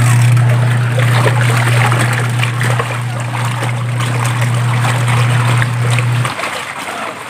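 Twin-tub washing machine's wash tub agitating a load of laundry: a steady motor hum under churning, splashing soapy water. The hum cuts off about six seconds in as the agitator pauses in its wash cycle, leaving the water sloshing.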